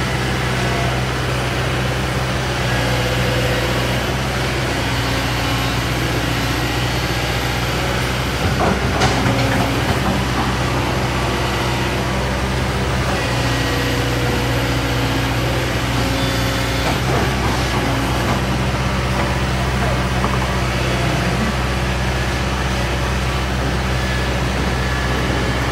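Heavy diesel engine running at a steady idle, a low even hum over roadside noise, with a couple of brief knocks about a third and two thirds of the way through.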